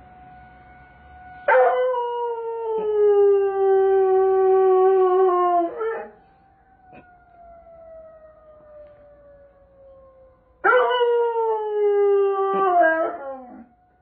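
Doberman howling at a tornado siren: two long howls, the first about four seconds and the second about three, each sliding slowly down in pitch and breaking up at the end. Between and under them the siren sounds faintly as a steady tone that falls slowly in pitch.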